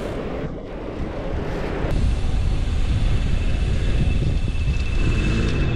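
Wind buffeting the microphone while riding a bicycle at speed, over a low road and tyre rumble. It grows louder about two seconds in.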